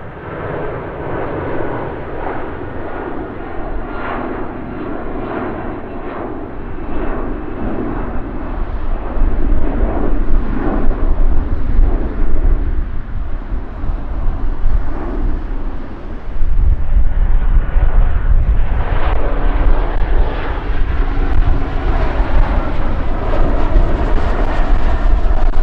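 Jet airliner engines growing louder as the aircraft comes close, with a heavy, deep rumble that swells sharply about two-thirds of the way through.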